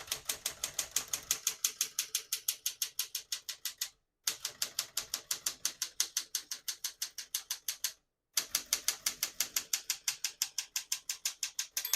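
Typing on a 1962 Smith-Corona Galaxie II manual portable typewriter: fast, even keystrokes, about seven a second, in three runs with two short breaks. Right at the end the margin bell dings, signalling that the carriage has reached the end of the line.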